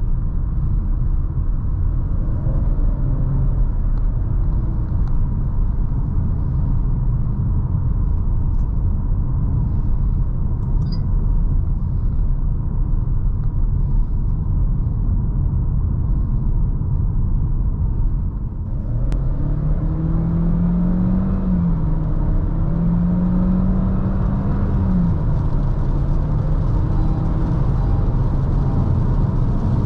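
Inside the cabin of a moving Chery Tiggo 4 Pro: steady road and tyre rumble with engine noise. About two-thirds of the way through there is a brief lull and a single click. Then the engine note rises as the car accelerates, holds, climbs a little more and settles back down.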